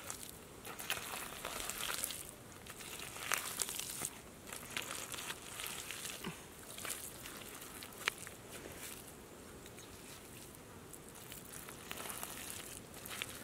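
Bare hands digging through wet mud, scooping and pushing it aside in irregular bursts of wet scraping, with a few sharp clicks.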